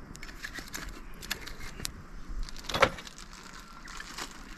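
Firewood being handled and laid on a campfire: scattered light clicks and knocks of wood, with one louder knock a little under three seconds in.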